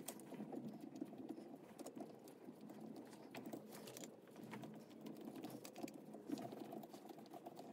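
Faint, irregular small metallic clicks and scrapes of a screwdriver turning out the screws of the spring-and-diaphragm cover on a Solex 34 PICT carburetor body.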